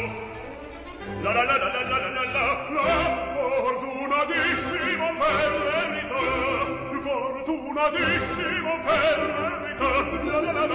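Music: operatic singing with a strong vibrato on long held notes, dipping briefly about a second in before the voice comes back in.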